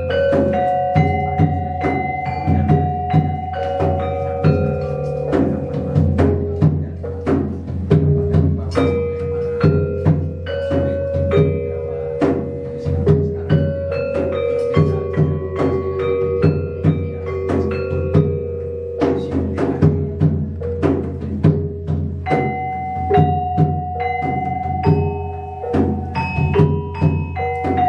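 Gamelan ensemble playing: struck metallophones ring out overlapping held notes over a steady low hum, with frequent sharp taps through the music.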